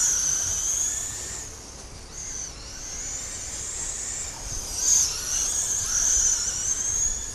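Several radio-controlled Mudboss race cars whining high as they run laps of a clay oval. The whine wavers up and down and swells as cars pass close, loudest about five seconds in.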